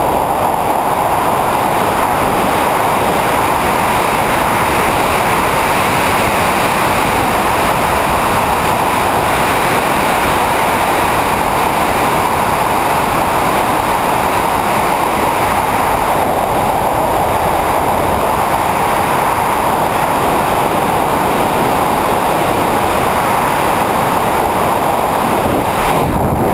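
Steady rush of wind over the microphone of a BASE jumper's body-mounted camera in freefall flight. The noise changes only right at the end, as the pilot chute is thrown.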